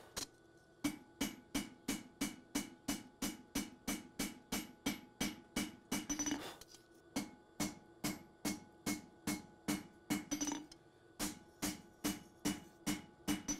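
Hand hammer striking a hot 52100 steel knife blade on an anvil: steady blows about three a second, each ringing off the anvil, with two short breaks. The smith is straightening the blade's tang.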